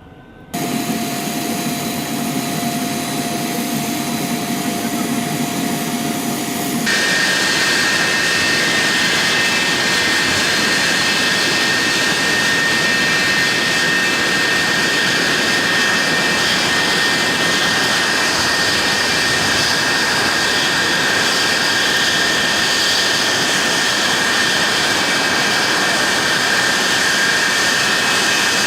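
F-16 fighter jet's turbofan engine running with a steady whine. It starts abruptly about half a second in and switches suddenly at about seven seconds to a louder, even rush with a different high whine that holds steady.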